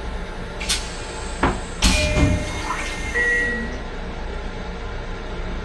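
The inside of a Long Island Rail Road M7 railcar restroom: a steady low rumble with a few sharp knocks and rattles about one to two seconds in, the loudest near two seconds, then brief thin squealing tones.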